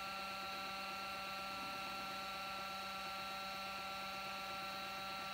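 CNC 3018 Pro router's stepper motors whining steadily, a constant hum of several fixed tones, as the machine sits powered for height-map probing of a PCB.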